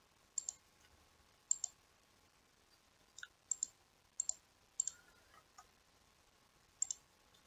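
Computer mouse button clicking: a dozen or so short, sharp clicks, several in quick pairs, at irregular intervals.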